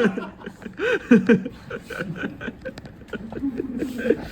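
Men chuckling and laughing softly in short bursts, with scattered faint clicks.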